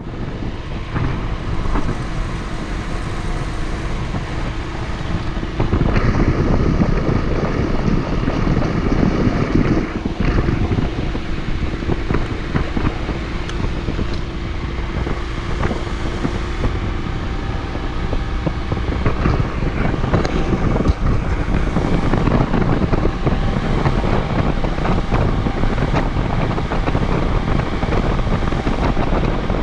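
Wind rushing over the camera's microphone on a moving Honda CD125T motorcycle, with its small air-cooled parallel-twin engine running steadily underneath. The wind gets louder about six seconds in.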